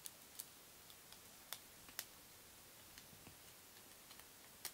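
Faint, scattered clicks and ticks of a screwdriver tightening the cable-clamp screws of a plastic three-pin plug.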